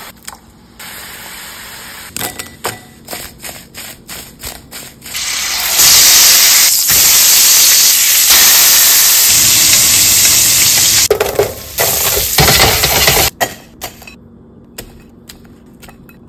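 Steak searing in a hot oiled stainless-steel pan, a loud steady sizzle that starts about five seconds in and cuts off abruptly near the end. Before it comes a run of short sharp clicks.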